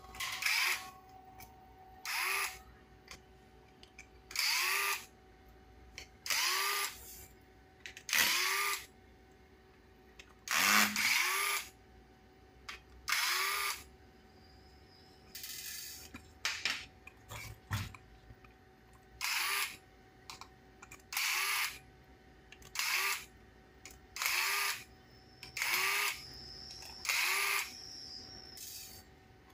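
Cordless electric screwdriver run in short bursts about every two seconds, each spinning up with a brief rising whine, as it backs screws out of the plastic chassis of an RC monster truck.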